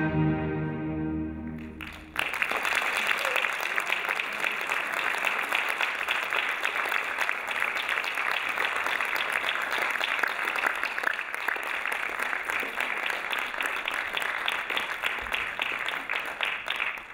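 The closing chord of orchestral ballet music fades out, and about two seconds in an audience breaks into steady applause, which cuts off suddenly near the end.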